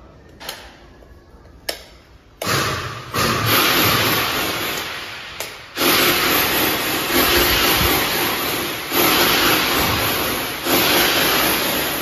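Power drill boring into the wall or ceiling for air-conditioner installation, starting about two and a half seconds in and running in repeated bursts of one to three seconds. A few light clicks come before the drilling.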